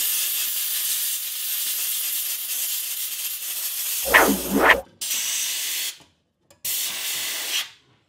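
Compressed-air blow gun blasting dust out of a refrigerator's condenser coil: a long steady hiss, then two shorter blasts that cut off sharply. A brief louder whistling sound comes about four seconds in.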